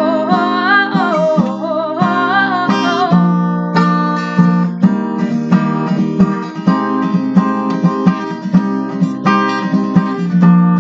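Acoustic guitar strumming chords in an instrumental break of a song, with a sung note winding down over the first three seconds.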